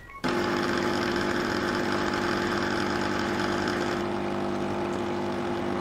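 Saachi espresso machine's vibratory pump humming steadily on a double-shot run, pushing descaling solution through the brew head into the bowl. The hum starts just after the beginning.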